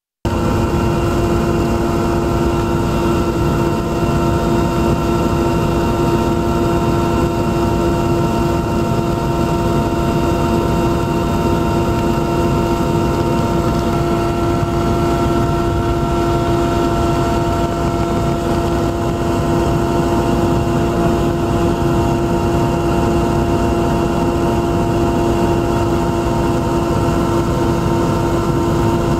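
Steady aircraft engine drone heard on board, a broad rush with a steady hum and several fixed whining tones; it cuts in abruptly at the start.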